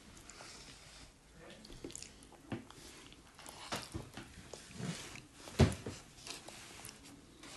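A small child eating: a metal fork scraping and tapping on a plastic plate, with chewing, and one louder knock about five and a half seconds in.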